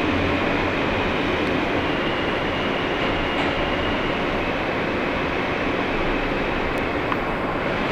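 Steady running noise inside a New York City Subway R160 car moving through a tunnel: wheels on the rails and the car's running rumble. A faint high whine comes in about two seconds in.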